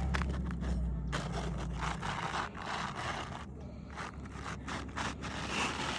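Asphalt roofing shingle scraping and rustling against the neighbouring shingles as it is worked under the tab above, in two stretches of a second or two with light clicks.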